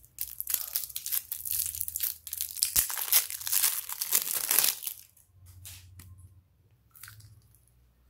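Thin plastic wrap crinkling and tearing as it is peeled off a plastic slime container, a dense crackle for about five seconds, then a few faint clicks of handling.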